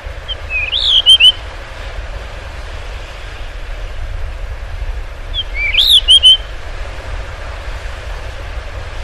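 Blue rock thrush singing: two short whistled, warbling phrases, one near the start and another about five seconds later, each climbing to a high note and then falling into a few quick notes, over a steady background noise with a low rumble.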